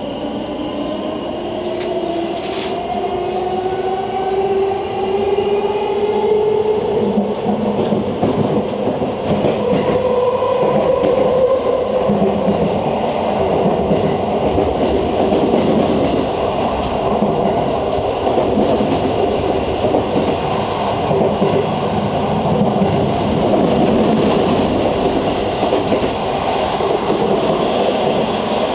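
JNR 115 series electric train heard from inside the car, pulling away: the traction motors and gears whine up in pitch over the first ten seconds or so as it accelerates, then settle into steady running noise of wheels on the rails with some rail-joint clatter.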